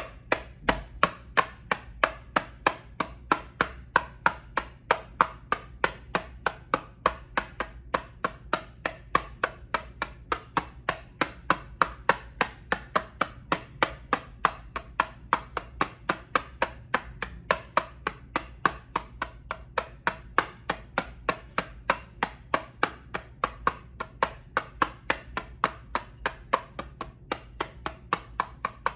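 Rapid, even tapping on a plastic eyeshadow palette case: sharp clicks about three to four a second, steady throughout.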